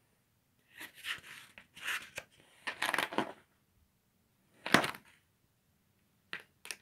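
Paper rustling as the pages of a spiral-bound sketchbook are handled and turned: a series of short rustles, the loudest about five seconds in, with two quick ones near the end.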